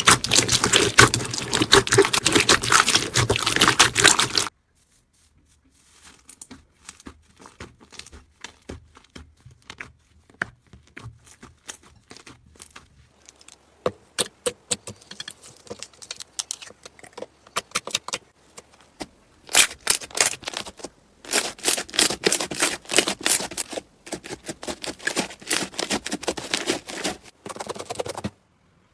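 Slime being pressed, squished and stretched by hand, giving sticky crackles and small pops. A dense, loud run of crackling breaks off about four seconds in. Sparser, softer clicks follow and thicken into loud crackling again in the second half.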